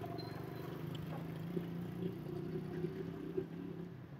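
A steady low motor hum, like an engine running at idle.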